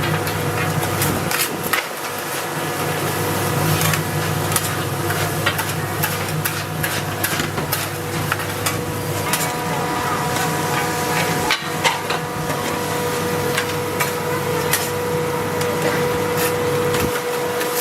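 Many sharp knocks and clacks at an uneven pace, over a steady hum. A steady whine grows stronger about nine seconds in.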